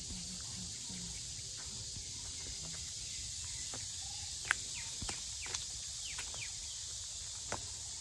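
Outdoor garden ambience: a steady high insect hiss, with several short, sharp chirps and clicks in the second half.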